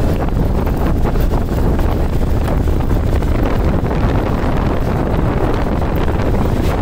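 Steady, heavy wind buffeting on the microphone of a motorcycle riding at road speed, with the bike's running and road noise underneath.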